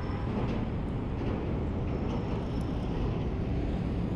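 Steady vehicle and road noise, a constant low rumble with no distinct events.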